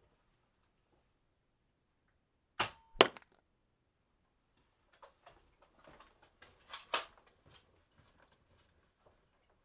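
Weapon sound effect: two sharp cracks about half a second apart, then a scatter of lighter clicks and knocks over about two and a half seconds.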